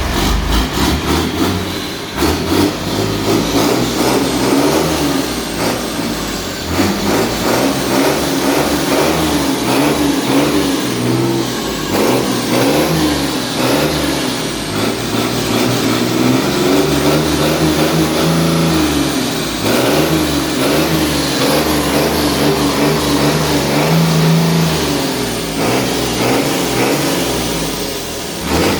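Freshly rebuilt Mercedes-Benz OM366LA turbocharged inline-six diesel running on a test stand during its first run, its revs rising and falling repeatedly, with a high whine that follows the revs.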